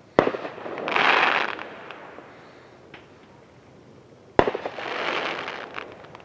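Two fireworks going off about four seconds apart, each a sharp bang followed by about a second of crackling hiss.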